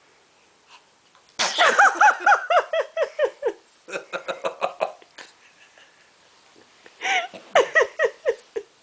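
A baby sneezes twice, each sneeze a sudden burst followed by a quick run of high-pitched laughter.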